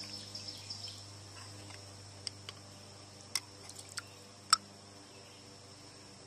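Rinse water dripping and trickling off a piston lifted out of a steel pail, followed by a few sharp clicks, the loudest about four and a half seconds in, as the piston is handled against the pail. A steady high cricket chirr runs underneath.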